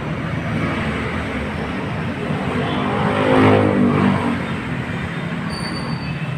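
Steady traffic noise, with a motor vehicle's engine swelling and fading about halfway through.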